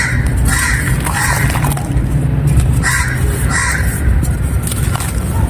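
Dry clay and claypot pieces being crumbled, with a steady low crunching rumble. Short bird calls repeat over it, about twice a second.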